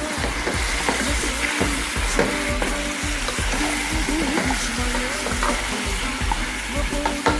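Short ribs, chicken hearts, onion and garlic frying in a pan: a steady sizzle, with a few light clinks and scrapes of stirring.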